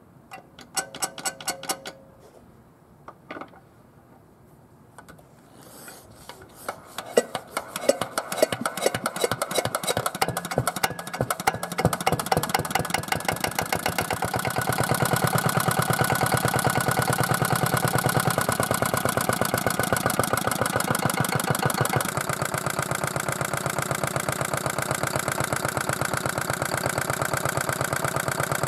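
Old Yanmar single-cylinder horizontal diesel stationary engine being started: a quick run of clicks, then about six seconds in it catches, its firing beats quickening and growing louder until it settles into a steady run.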